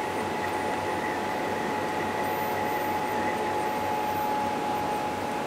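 Wheel-type ultrasonic fabric cutting and welding machine running steadily as fabric is fed under its patterned rotary wheel: an even mechanical hum with a constant whine.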